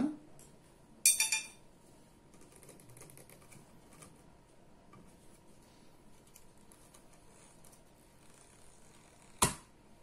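Handling of a jar of sesame oil: a short rattle of clicks about a second in, faint handling noise, and one sharp knock near the end.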